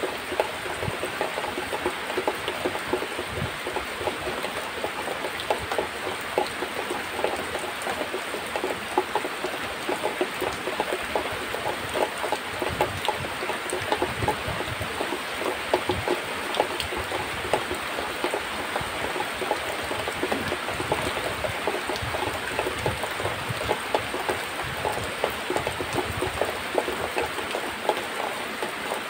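Milk squirting from a cow's teats into a plastic bucket during hand-milking: a steady, dense splashing over a hiss.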